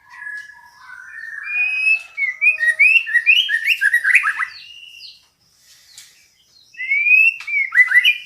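Female white-rumped shama calling, the call used to draw males into song: a few steady whistled notes, then a fast run of short, sliding chirps. After a pause about five seconds in, a rising whistle leads into another quick run of chirps near the end.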